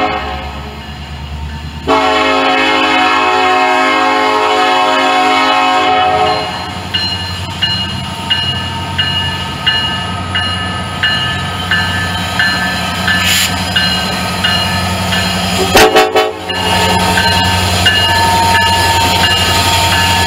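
Norfolk Southern diesel freight locomotives sounding the air horn for a grade crossing: one long blast, then a short, loud blast about 16 seconds in. Between the blasts the locomotive diesel engines drone as they pass, and a bell dings steadily about one and a half times a second.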